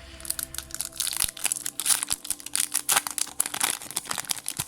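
Foil booster pack wrapper being crinkled and torn open by hand: an irregular run of sharp crackles.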